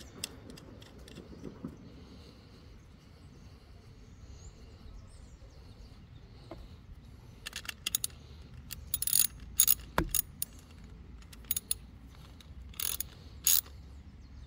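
Small socket ratchet wrench clicking in short runs as a nut is turned onto a steel side-stand bolt, after a few seconds of quiet handling of the metal bracket.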